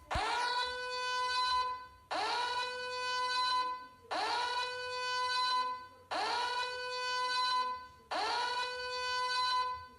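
Large siren sounding in a string of identical blasts, about one every two seconds. Each blast slides quickly up in pitch, holds a steady tone for about a second and a half, then cuts off.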